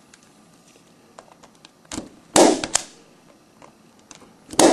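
Spring-loaded impact punch-down tool firing twice, about two seconds apart, each a sharp snap as it seats a wire into the 110 terminal of a Cat5E RJ45 keystone jack and cuts off the excess. Faint clicks come before the first snap.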